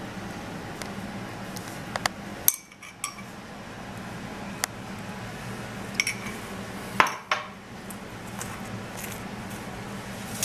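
Metal spoon clinking against a ceramic plate as dressing is spooned over a chicken skewer: several sharp separate clinks, the loudest about two and a half and seven seconds in, over a steady low hum.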